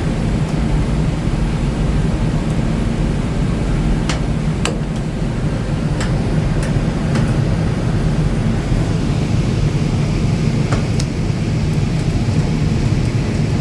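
Steady low rumbling noise throughout, with a handful of short sharp clicks scattered through it from handling the dryer cord's wires and terminal screws.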